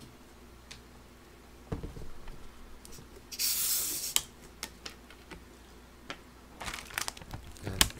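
Twist-off cap of a Filite happoshu (sparkling low-malt beer) bottle being opened: one short hiss of escaping gas, under a second long, about midway, with a few light clicks from the bottle being handled.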